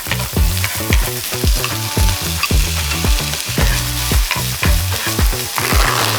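Food sizzling as it is stir-fried in olive oil in a frying pan. The sizzle swells louder near the end. Background music with a steady beat plays under it.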